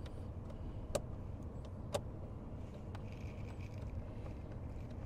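Light metallic clicks of a screw and tool being handled at the speaker mounting, about one a second, the two sharpest about a second apart. Under them runs a steady low hum, which fits the Dacia Spring's cabin ventilation fan turned down low.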